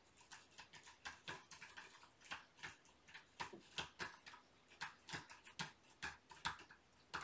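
An irregular run of light, sharp clicks, about three a second.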